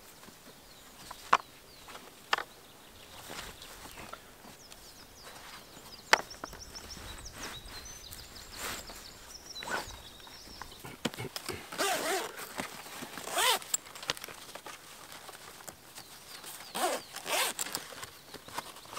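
Folding solar panel being packed into its fabric carry case: a few sharp clicks and knocks as the panel and case are handled, then rasping zipper pulls as the case is zipped shut, about two-thirds of the way through and again near the end.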